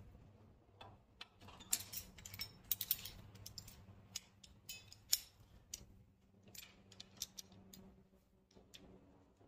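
Faint, scattered metal clicks and clinks of hand tools being handled: a steel hand reamer set into a bronze bushing clamped in a bench vise, and locking pliers fitted onto the reamer's shank. The sharpest click comes about five seconds in.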